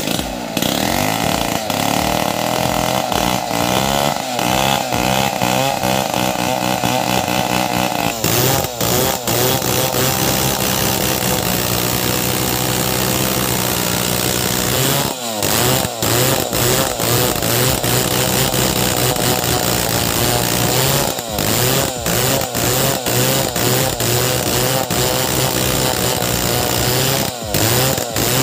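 Large two-stroke chainsaw cutting through a teak log at high revs under load. The engine pitch wavers for the first several seconds, then holds steady, easing off briefly a few times.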